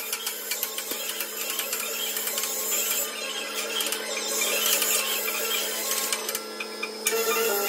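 Metalworking machinery running steadily in a workshop, with a constant hum and rapid fine clicking. Background music comes in near the end.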